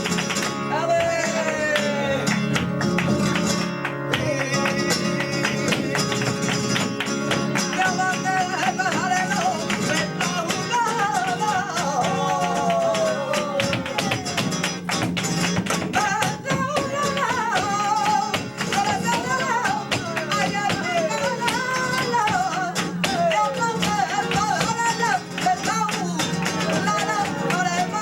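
Live flamenco bulería: a singer over flamenco guitar, with a constant patter of sharp percussive hits.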